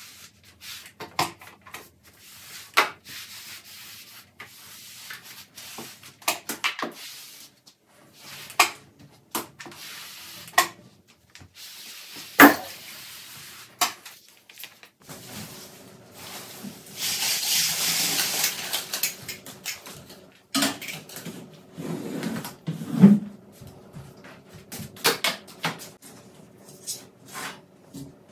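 Household cleaning: rubbing and scrubbing of surfaces, with many scattered knocks and clicks of objects being handled and set down. A denser hiss lasts a few seconds past the middle.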